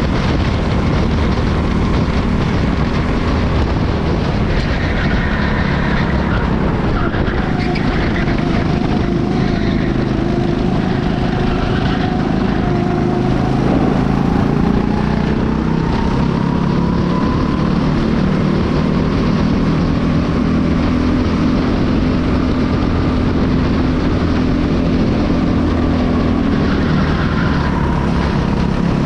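Honda four-stroke engine of a rental racing kart, heard onboard at race pace. Its pitch falls and rises over several seconds as the throttle is lifted and reapplied through the corners.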